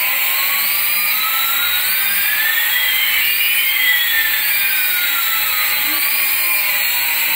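Small twin-rotor toy RC helicopter's motors and rotors whining, with two pitches that slide past each other: one rising, the other falling, crossing about halfway through.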